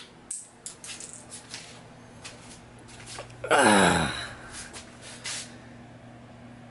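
A small 3D-printed tough-resin toy axe thrown hard onto a tiled floor: a sharp crack of impact at the very start, then a few light clicks as it bounces and clatters to rest. About three and a half seconds in, a loud short cry falls steeply in pitch.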